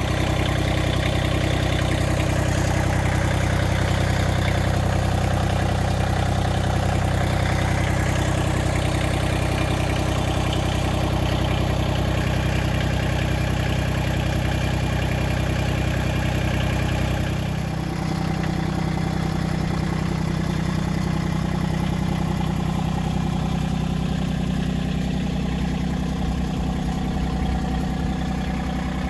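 Massey Ferguson 1723 compact tractor's diesel engine running steadily; its note shifts a little more than halfway through.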